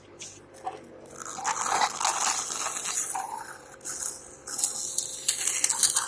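Wet, crackling hiss of mucus being cleared from a tracheostomy cannula, in irregular bursts with short gaps, over a faint steady machine hum.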